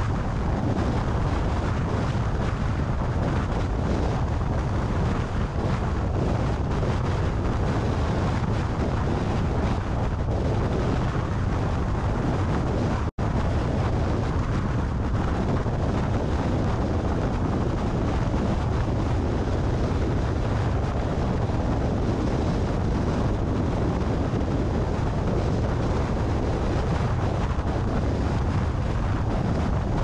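Strong wind buffeting the microphone of a camera on a car at highway speed, a steady low rumble mixed with tyre and road noise. The sound cuts out for an instant about 13 seconds in.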